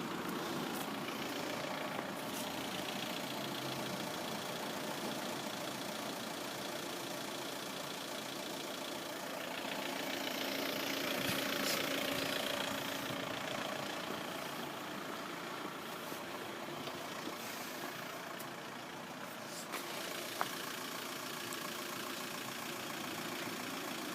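Road vehicle engines running and idling. One vehicle passes louder about halfway through, and there is a single sharp click near the end.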